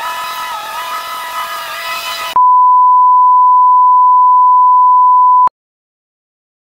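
Riding lawn mower engines running for about two seconds, then a loud, steady electronic beep of a single pitch that lasts about three seconds and cuts off suddenly.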